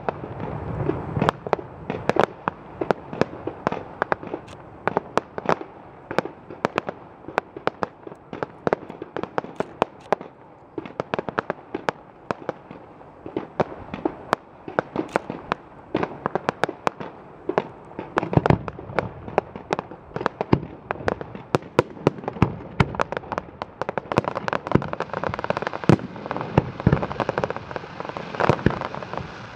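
Fireworks display: a rapid, continuous string of sharp bangs and crackles from bursting aerial shells, growing denser and louder about eighteen seconds in and again near the end.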